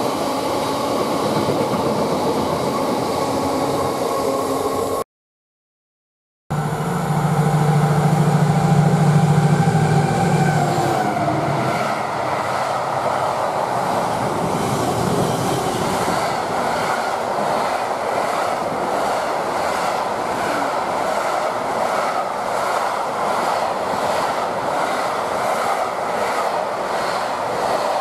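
Freight wagons rumbling past on the rails, cut off abruptly about five seconds in. After a second and a half of silence, a passing diesel freight locomotive is heard with a loud low engine drone and a falling whine. Container wagons then roll by with a steady, rhythmic clatter of wheels over the rail joints.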